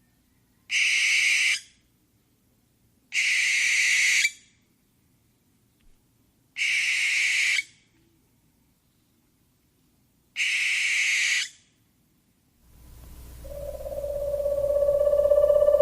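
An owl screeching: four harsh, hissing screeches about a second long each, spaced a few seconds apart. Near the end a steady pitched tone swells in and holds.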